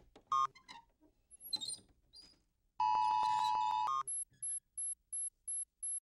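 Synthesized electronic sound effects. A short bleep comes first; about three seconds in, a loud buzzy electronic chord sounds for about a second. It is followed by a steady run of short electronic beeps, about three a second, like a blinking display.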